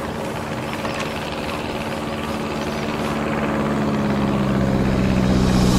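Propeller aircraft's piston engine droning steadily, growing louder throughout.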